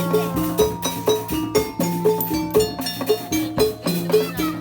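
Obrog ensemble music: a steady percussion rhythm with a repeating two-note pitched figure over a held low tone.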